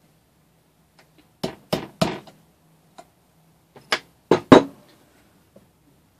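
Hammer taps on a small engine's flywheel as it is driven onto the crankshaft with its key, sharp metallic knocks in two groups of three, the last strike loudest. The flywheel is not seating on the shaft.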